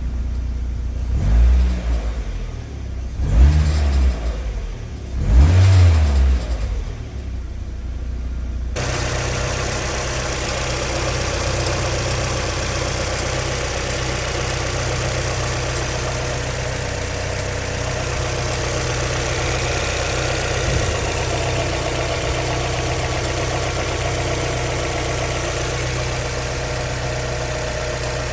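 A Mazda MX-5 NB facelift's four-cylinder VVT engine is revved briefly three times, each rev rising and falling. From about nine seconds in, it runs steadily, heard up close. The running carries a weird engine noise whose cause the owner is asking about.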